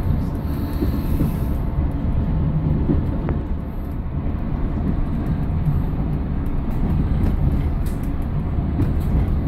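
Class 115 diesel-mechanical multiple unit under way, heard from the driver's cab: a loud, steady low rumble of the diesel engine with the wheels running on the rails.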